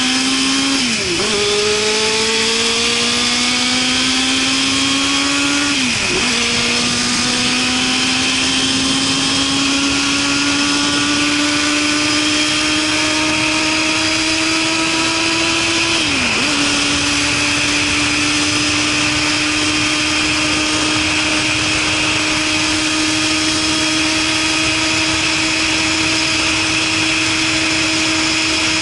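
Suzuki Katana motorcycle engine through a Super Combat aftermarket muffler, accelerating through the gears. Its pitch climbs and drops sharply at three upshifts, about one, six and sixteen seconds in, then holds steady at cruising speed with wind rushing past.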